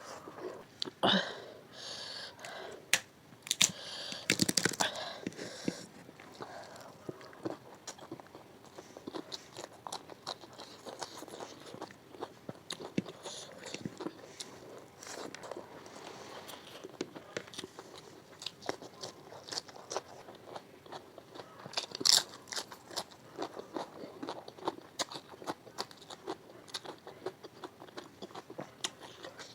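Close-miked chewing and biting of chicken biryani: many small wet mouth clicks throughout. Louder bites come about a second in, around four to five seconds in, and again near twenty-two seconds.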